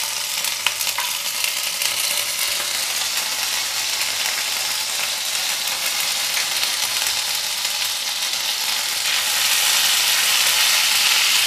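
Hot oil sizzling in a nonstick frying pan as whole cumin seeds, dried red chillies and ginger paste fry in it, the tempering (tadka) for dal fry. A few faint clicks in the first second, and the sizzle grows louder about nine seconds in.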